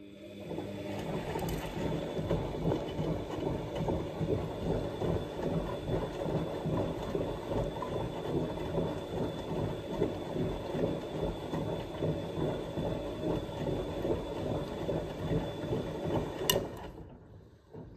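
Siemens Siwamat XS 1060 front-loading washing machine turning its drum in a wash cycle: a steady motor whine over a loud, dense rumbling and knocking of the load and drum. The owner puts this down to the newly fitted shock absorbers, which still drum even after oiling, with their rubber pads passing on a rubbing noise. The drum starts turning at the very start and stops with a click near the end.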